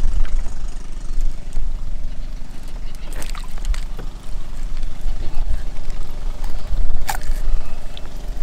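Steady low hum of a boat motor running at idle, under a heavy, uneven rumble of wind on the microphone. Two short sharp knocks sound about three and seven seconds in.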